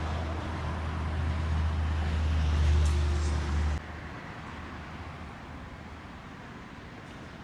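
Road traffic rumble from passing vehicles, swelling and then cutting off abruptly about four seconds in, leaving a quieter steady traffic hum.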